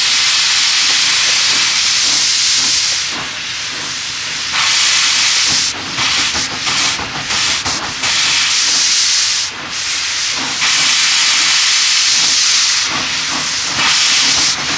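Loud hiss of steam blowing from an NRZ Garratt steam locomotive's open cylinder drain cocks as it moves off slowly. The hiss starts suddenly, eases for a second or so, then comes back with several short breaks.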